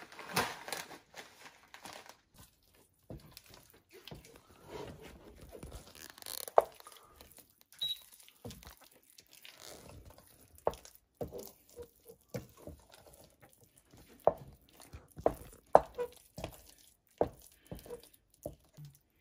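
Wooden spatula stirring and scraping a thick, sticky green-pepper miso around a stainless steel pot as it is reduced over the heat. It gives irregular scrapes and knocks that come more often in the second half.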